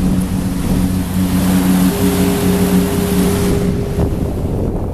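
Motorboat engine running steadily under way, a constant low hum with a higher tone joining about two seconds in, over a rush of wind and water that drops away near the end.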